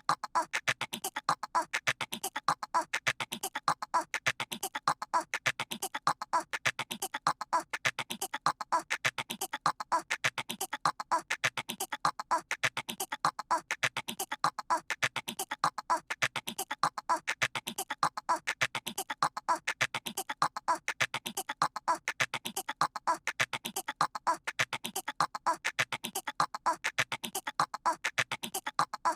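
A cartoon toddler's voice making rapid squirrel-like chattering noises, the same short stretch looped over and over, repeating about every two seconds.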